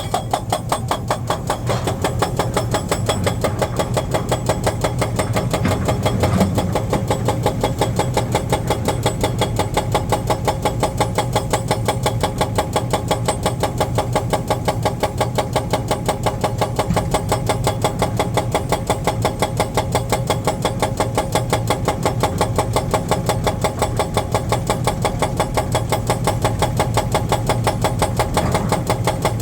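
Heavy diesel engine of a construction machine running steadily under load, with a fast, even pulse of several beats a second.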